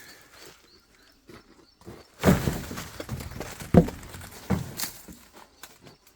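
A few loud, sudden thumps and knocks, with faint rustling between them.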